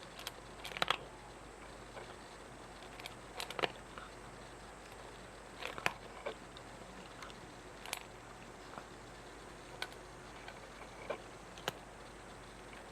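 A cat chewing: short, irregular crunches, a few bunched together in quick runs and then single ones a second or two apart.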